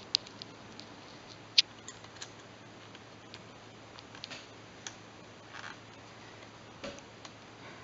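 Small plastic clicks and scrapes as a plastic corner piece is worked by hand onto the screen bezel of a Toshiba R830 laptop, with one sharper click about one and a half seconds in.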